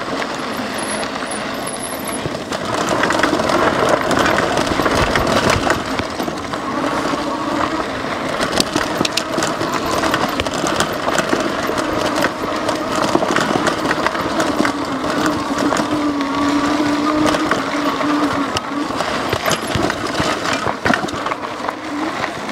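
Lectric XP 3.0 e-bike riding on a rough desert trail: the rear hub motor whines under power, its pitch shifting a little with speed, over the steady noise of fat 20-by-3-inch tyres on gravel and frequent sharp rattles and clicks from the bike.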